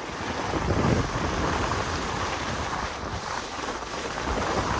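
Wind buffeting the microphone while skiing downhill, mixed with the steady hiss and scrape of skis sliding over packed snow.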